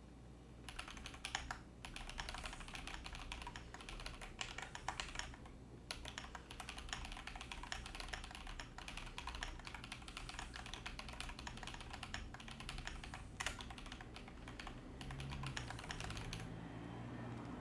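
Continuous fast typing on a computer keyboard, a dense run of key clicks that starts about a second in and stops near the end. It is picked up by an Elgato Wave 3 USB condenser microphone sitting close to the desk.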